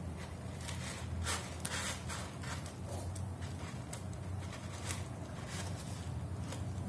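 Kitten digging in pellet cat litter: irregular scratching and rustling strokes of the pellets being pawed, over a steady low hum.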